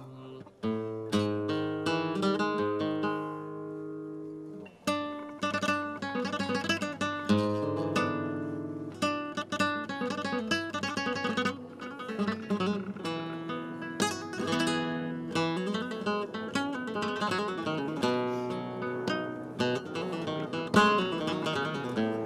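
Background music on acoustic guitar: quick plucked runs and strummed chords, with a short lull about four seconds in.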